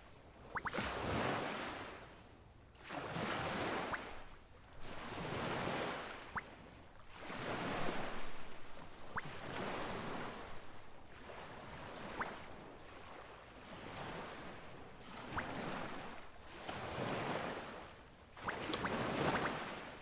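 Ocean surf: waves washing in and drawing back in regular swells about every two seconds.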